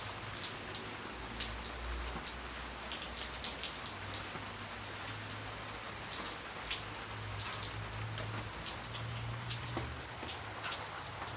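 Light rain falling steadily, a continuous hiss with scattered individual drops ticking on a surface. A low steady hum runs underneath.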